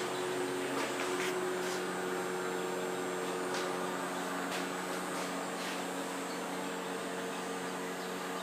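Steady machine hum made of several even tones, with a few faint clicks now and then.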